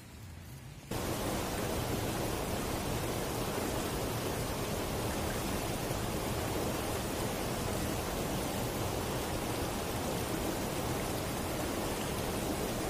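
Shallow, rocky mountain stream rushing over stones: a steady wash of water noise that cuts in abruptly about a second in.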